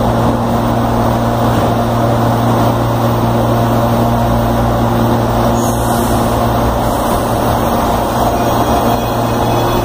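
CAF Series 8500 electric multiple unit standing at the platform, giving a loud, steady hum with a low droning tone. A faint high whine comes in near the end.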